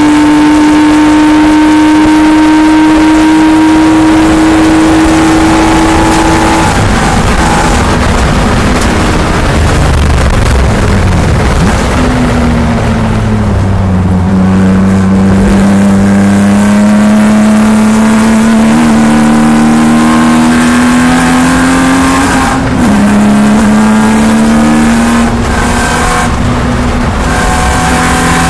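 TCR touring car's turbocharged engine heard inside the cockpit at racing speed. It holds a steady high note, then falls in pitch as the car brakes hard and downshifts for a slow corner. It then climbs again under full throttle, with an upshift drop about two-thirds of the way through before rising once more.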